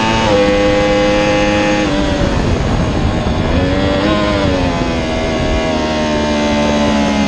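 Yamaha R1's crossplane inline-four engine on the overrun under hard braking from top speed, shifting down from fifth to second gear. Its note drops in pitch just after the start and again about two seconds in, rises briefly around four seconds in, then falls slowly as the speed comes down, over a steady rush of wind.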